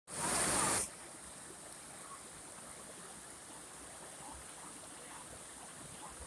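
A brief loud rush of noise lasting under a second at the start, then faint steady running water with small trickling sounds.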